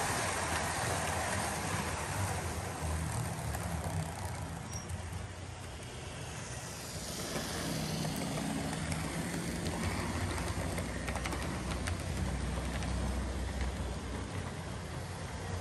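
OO gauge model trains running on the layout, a Class 47 diesel model among them: a steady electric motor hum with wheel noise on the track. It grows louder about seven seconds in as the locomotive passes close by, with a few light clicks of wheels over rail joints and points a little later.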